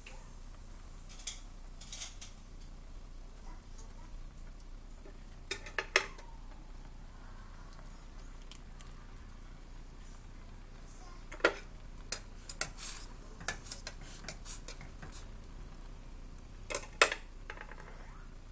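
Scattered sharp clinks and clicks of utensils against stainless steel cooking pots, a few at a time with pauses between them and a busier run about two thirds of the way in. Near the end comes a strong pair of clicks with some rustling as a seasoning sachet is handled over the pot.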